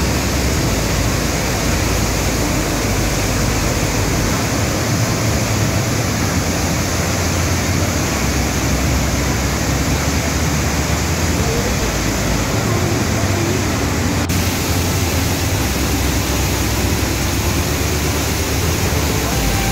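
Large waterfall pouring heavily into its gorge: a loud, steady rush of falling water with no breaks.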